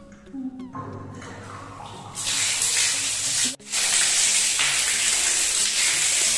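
Water gushing and spraying out of a plastic PVC ball-cock float valve and splashing over its float ball, a loud steady hiss that starts suddenly about two seconds in. The float hangs low, so the valve is wide open and the tank is filling. The sound drops out for an instant about halfway through.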